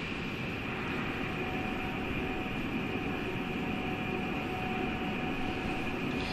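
Steady rushing rumble with a thin, high steady whine over it, from the launch pad ahead of the Atlas V's engine ignition.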